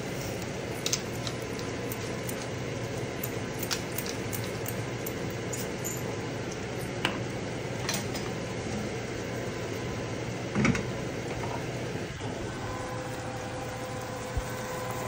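Mackerel and vegetables sizzling steadily in a frying pan, with a few light clicks and one louder knock about ten and a half seconds in.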